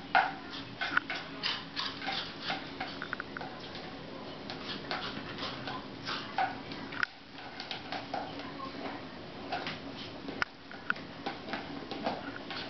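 A beagle puppy's claws clicking and skittering on a tiled floor as it runs about playing with a toy chicken: many quick, irregular taps, several a second, with a brief lull about seven seconds in.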